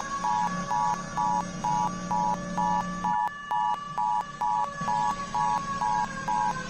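Electronic two-tone alert beeps pulsing about twice a second, over a siren wailing slowly up and down. A low hum underneath cuts out about three seconds in.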